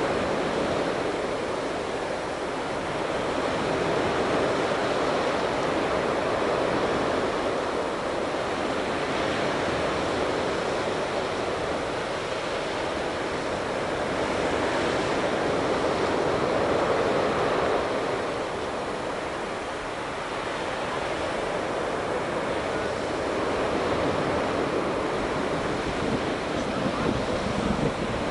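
Ocean surf breaking on a sandy beach: a steady rushing wash that slowly swells and eases, with some wind.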